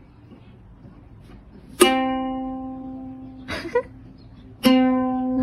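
A plucked string instrument sounds the same single note twice, once about two seconds in and again near the end. Each note rings and slowly fades. Between the two notes there is a brief, short noise.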